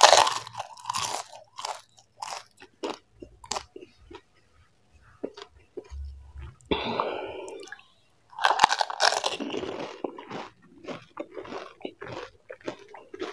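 Close-miked crunching and chewing of panipuri, crisp fried puri shells filled with spicy water. A loud crunch comes right at the start as a whole puri is bitten, then moist chewing with many small crackles, and another loud stretch of mouth sounds about two-thirds through.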